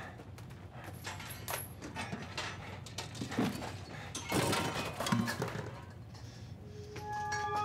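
Supplies being rummaged through and handled on storage shelves: scattered clicks, knocks and rustles, with the loudest clatter and rustle about four to five seconds in.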